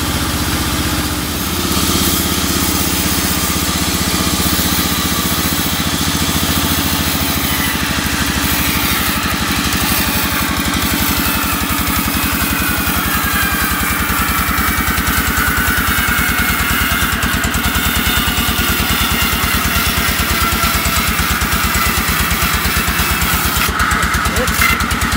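Engine-driven vertical band sawmill sawing a teak log lengthwise: the engine runs with a steady rapid throb, and in the second half the blade's whine in the wood slowly falls in pitch.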